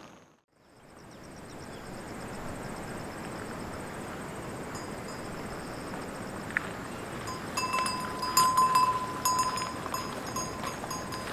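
Small bells ringing and jingling irregularly, beginning about five seconds in, over a steady rushing noise.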